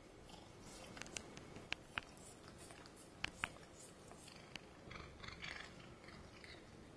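Domestic cat purring softly and steadily while licking a finger, with wet licking sounds and several sharp mouth clicks. The loudest clicks come as two quick pairs in the first half.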